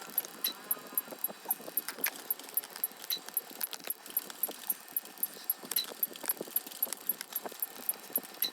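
A rapid run of short sound-effect clicks: a steady, very high tick about four times a second, with irregular louder clicks and knocks in between.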